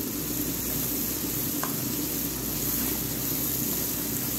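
Shredded cabbage and green capsicum sizzling steadily as they shallow-fry in oil in a nonstick pan, stirred with a spatula.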